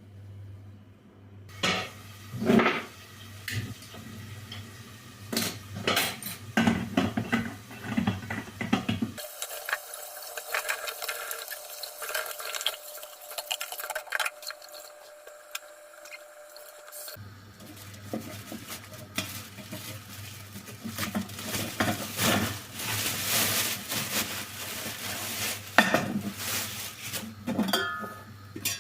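Kitchen clatter: dishes, pots and metal utensils knocking and clinking in many short, irregular knocks.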